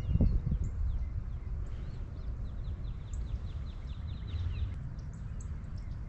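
Wind rumbling on the microphone, with small birds chirping over it, including a fast run of repeated chirps about halfway through.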